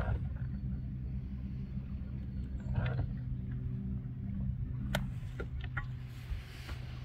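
An engine running at a steady idle, a low, even hum, with a sharp click about five seconds in.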